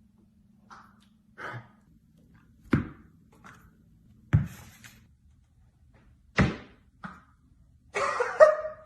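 Three loud, heavy thumps about one and a half to two seconds apart, with a few lighter knocks between them. Laughter begins near the end.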